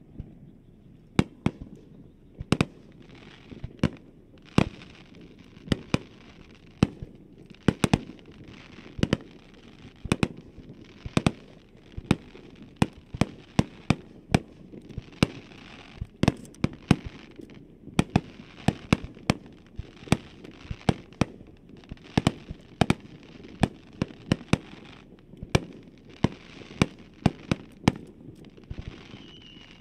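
Aerial firework shells bursting in a rapid, irregular series of sharp bangs, about one to three a second, with crackling between them. Near the end a high whistle falls in pitch.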